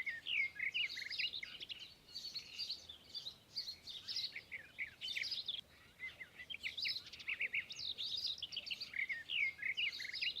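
Birds chirping and singing, a dense run of quick high chirps and trills with a short lull a little past halfway.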